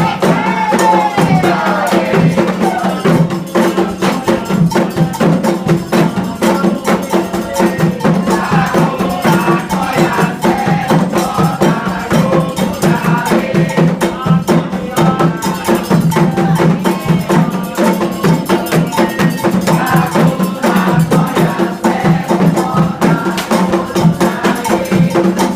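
Candomblé ritual music: atabaque hand drums and a struck bell keep a dense, steady rhythm under singing voices.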